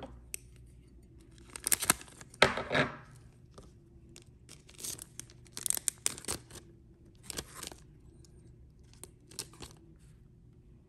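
Thin plastic penny sleeve crinkling and rustling between the fingers as a trading card is slid into it, in several short, irregular bursts of crackle.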